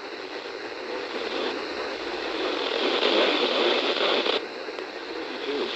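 Radio receiver tuned to a weak NOAA Weather Radio station, giving a steady hiss and static that swells slightly in the middle.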